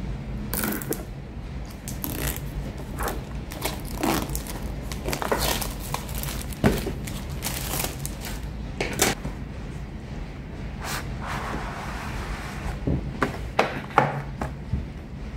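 Plastic shrink-wrap on a cardboard box being torn open along its pull strip and crinkled, then the box handled and opened, with scattered sharp crackles and knocks and a longer scraping rustle about eleven seconds in.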